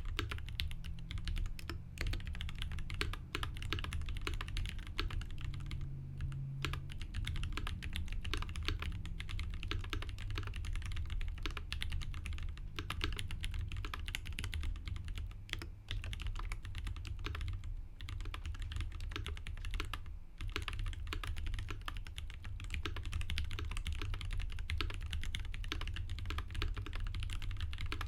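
Continuous fast typing on the Mesa TKL prototype mechanical keyboard: lubed Durock T1 tactile switches under GMK Cyan doubleshot ABS keycaps, with lubed Durock screw-in stabilizers. Dense key clacks run on with a few brief pauses, over a low hum.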